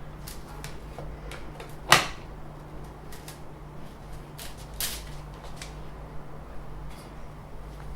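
Scattered clicks and knocks of 3D printer parts being handled. A sharp knock about two seconds in is the loudest, and a second one comes near five seconds, over a steady low hum.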